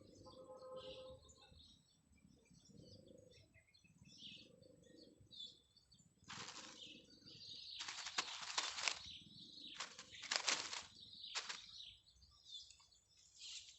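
Birds chirping faintly, with several short, louder bursts of noise from about six seconds in to just past eleven seconds.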